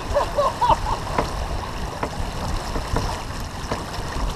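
Wind buffeting the microphone and water rushing past the hull of a sailboat under way, heeled over in a fresh breeze, with occasional knocks.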